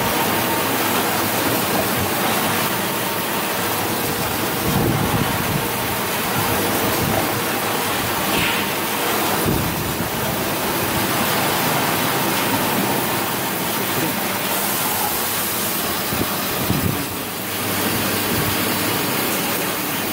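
Automatic band-saw maxi-roll tissue cutter and its conveyor running: a loud, steady machine noise like a rushing hiss, broken by a few dull thumps.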